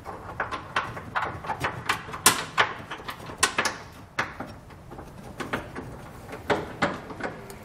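Irregular metal clicks and knocks, a few a second, as a carriage bolt on a pull wire is worked through a hole in a pickup truck's steel frame rail.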